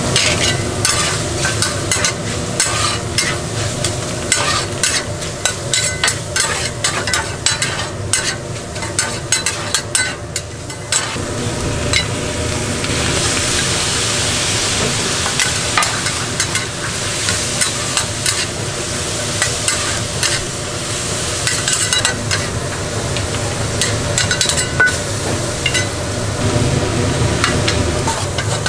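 Stir-fried giblets sizzling in a hot pan while a spatula scrapes and clicks through them. About halfway through, the sizzle grows louder and hissier.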